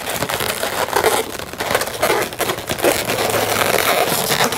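Latex twisting balloons rubbing against each other at close range as a flattened 350 balloon is twisted and wrapped onto an inflated balloon figure: a continuous scratchy rubbing with many small clicks.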